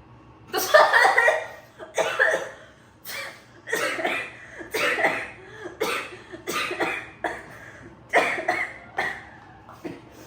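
A person coughing again and again, about eight coughs roughly a second apart, set off by sniffing a pungent product held close to the nose.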